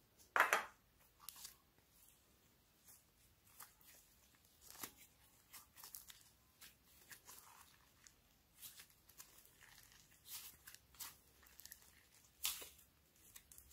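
Glossy slime mixed with soft clay being squeezed and stretched by hand, giving irregular sticky pops and crackles. The loudest comes about half a second in, with another strong one near the end.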